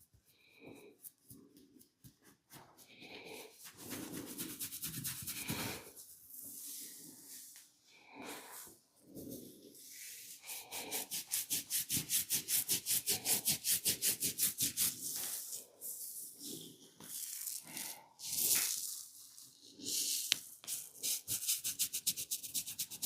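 Hands massaging bare skin, rubbing and kneading with irregular strokes. From about 11 to 16 seconds in there is a run of quick, regular rubbing strokes, about seven a second.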